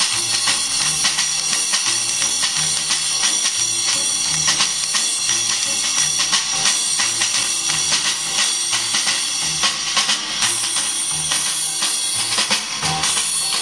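Recorded music with a steady drum beat and tambourine, played back from a cassette on a Sansui SC-1110 stereo cassette deck.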